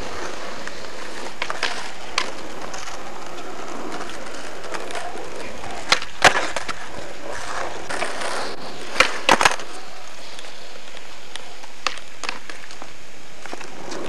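Skateboard rolling on asphalt, with sharp clacks of the board: a single loud clack about six seconds in and a quick run of three clacks about nine seconds in.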